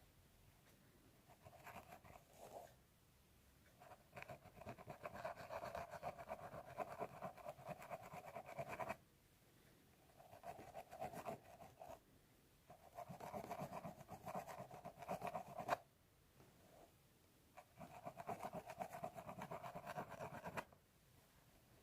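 Scratching a scalp through the hair in fast, close strokes, in several bursts of a few seconds each with short pauses between.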